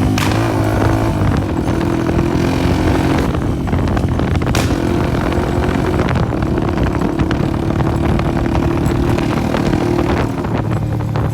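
Honda CG 125 motorcycle's single-cylinder four-stroke engine running on the move through a burst silencer, loud and open. The engine note eases down in the first second or so, then holds steady, and there are two sharp pops, one right at the start and one about four and a half seconds in.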